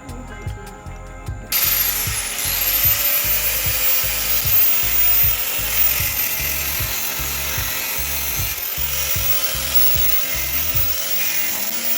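Power grinder cutting through a steel wheel stud: a steady high whine with a loud hiss of metal being cut, starting about a second and a half in, its pitch sagging briefly twice as the disc bites. Background music with a beat runs underneath.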